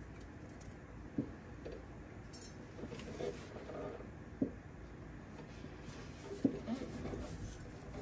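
A few light knocks and clinks of tools being handled, about three sharp ones spread through, over a low steady hum.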